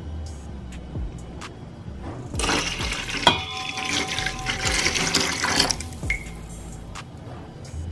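Warm milk poured in a steady stream into a stainless steel mixing bowl that already holds liquid, lasting about three seconds from a couple of seconds in. About a second into the pour there is a sharp clink followed by a ringing tone.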